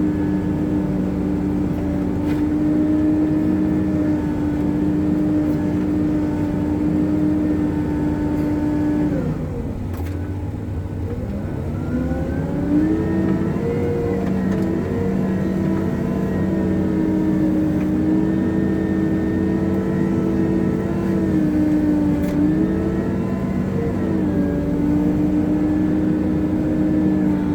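Hitachi 370 wheel loader's diesel engine running steadily at working revs, dropping in pitch about nine seconds in and revving back up a few seconds later.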